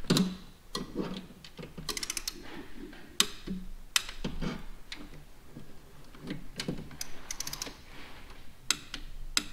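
Metal hand tools clicking and clinking against engine parts, in scattered single clicks with two short runs of rapid clicking, about two seconds in and again past seven seconds.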